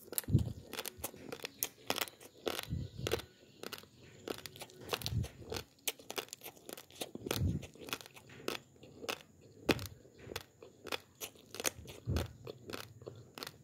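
Raw basmati rice grains being chewed: a steady run of sharp, dry crunches, with a deeper thud about every two and a half seconds.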